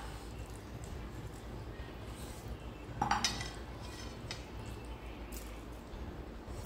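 Eating by hand: fingers scraping curry and rice across plates, and mouth sounds of chewing meat, with a short louder sound about three seconds in.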